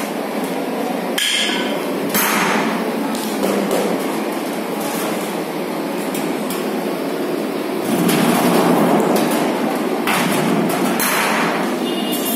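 Hammering and metal knocks at irregular moments over a steady noisy din.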